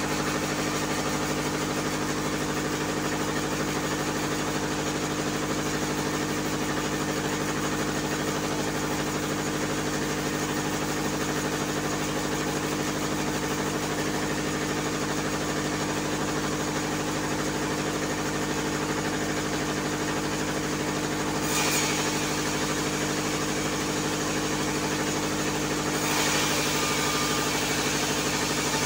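The engine driving a small bandsaw sawmill runs at a steady, unchanging speed, a constant mechanical hum. A hiss rises over it briefly about three-quarters of the way through, and again near the end.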